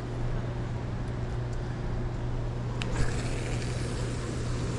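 Steady low hum with an even rushing noise from Cordell Hull Dam and its open floodgates' outflow, with one light click about three seconds in.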